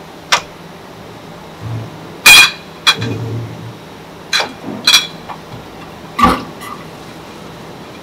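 Glass milk bottles clinking against one another and the machine on an automatic filling line's conveyor: half a dozen sharp clinks at uneven intervals, the loudest about two seconds in, over a faint steady machine hum.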